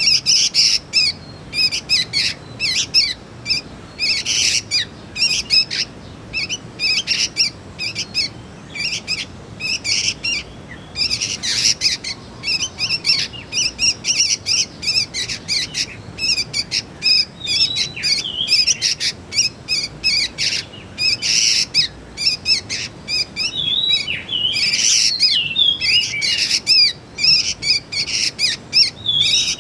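Young sooty-headed bulbuls calling: a dense run of rapid, high chirps with no real pause, broken now and then by short gliding notes.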